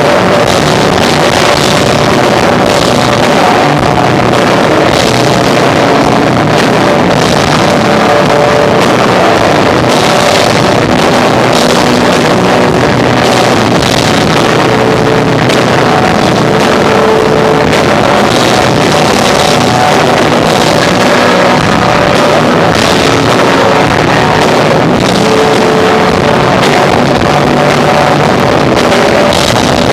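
A live rock band of electric guitar, bass and drums playing, recorded loud and overloaded so that the mix comes through as a dense, distorted wash with the drums beating steadily.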